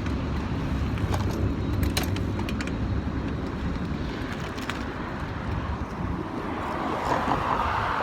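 Steady low rumble of road traffic, with a few light clicks and a hiss that swells near the end.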